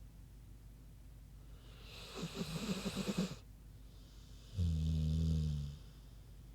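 An American bulldog snoring. About two seconds in comes a rattling snore, and about a second later a louder, low breath held at one steady pitch.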